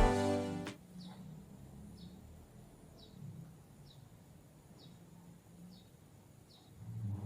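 Acoustic guitar music cuts off under a second in. Then faint outdoor ambience with a short, high chirp repeating about once a second, and a brief low rumble near the end.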